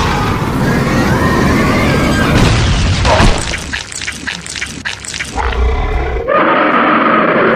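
Cartoon battle sound effects over background music: a heavy booming rumble, then a quick run of sharp crashing impacts from about two and a half to five and a half seconds in, before steady music takes over near the end.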